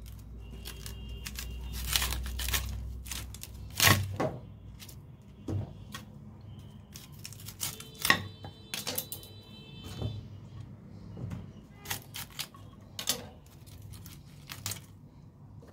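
Cauliflower leaves and florets being snapped and torn off the head by hand over a wooden cutting board: irregular sharp snaps and cracks, a dozen or so, the loudest about four seconds and eight seconds in.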